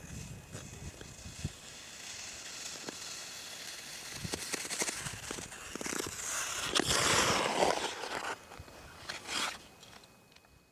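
Ice skate blades scraping and clicking on natural river ice as a skater strides closer, with a louder scraping rush about six to eight seconds in and a shorter one near the end.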